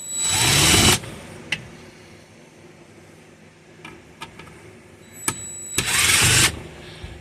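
A power tool runs in two short bursts of about a second each, one at the start and one about six seconds in, its motor spinning up each time, with a few light clicks of metal parts between the bursts. This is the work of unfastening the old B&M ratchet shifter from the car.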